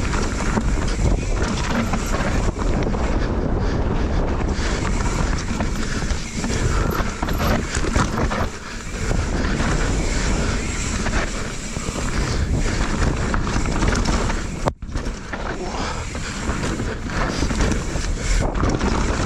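Mountain bike rolling fast down a dirt singletrack, heard through a bike-mounted camera: wind buffeting the microphone over the rumble of tyres on dirt and a steady clatter of knocks from the bike over roots and rocks.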